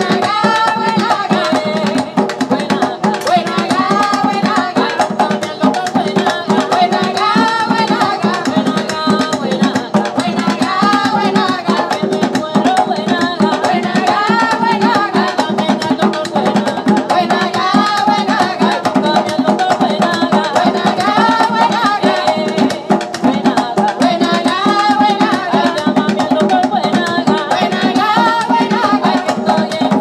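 Ensemble of conga-style hand drums played together in a steady, driving rhythm, with women's voices singing a short phrase repeated over and over.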